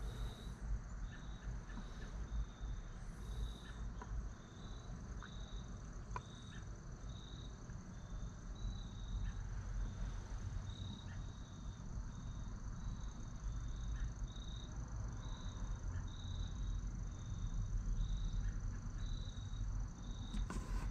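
An insect chirping steadily: short high chirps at an even pace, a little more than one a second, over a steady high tone and a low rumble, with a few faint clicks.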